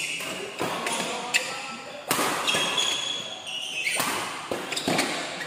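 Doubles badminton rally: rackets striking the shuttlecock several times in quick exchanges, with shoes squeaking and feet thudding on the court floor.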